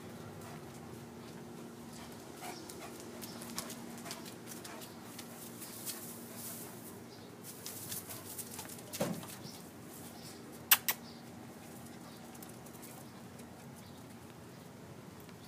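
A Great Pyrenees and a corgi puppy playing: soft scuffling and rustling of paws and bodies on concrete and grass, with scattered light clicks. A sharp double click about eleven seconds in is the loudest sound.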